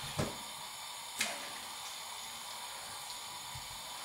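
Two short knocks about a second apart, with a smaller one near the end, as raw pork belly is handled on a metal tray and placed into an enamel pot of brine, over a steady faint hiss.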